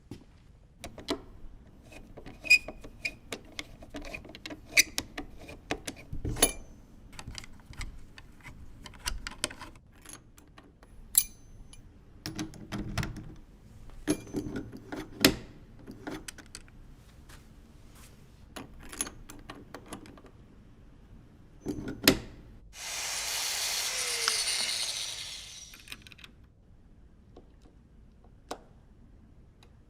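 Metal clicks, clinks and knocks of a door handle and its parts being worked on with tools, scattered and irregular, with a louder knock about two-thirds of the way through followed by a hiss lasting about three seconds.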